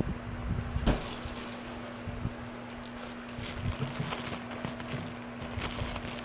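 Close handling noise from hands with the toys and packaging: a knock about a second in, then soft rustling and crackling, over a steady low hum.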